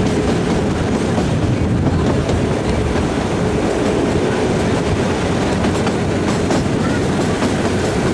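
Kalka–Shimla narrow-gauge toy train running along the track, with a steady rumble and wheel clatter over the rails and a faint steady tone beneath.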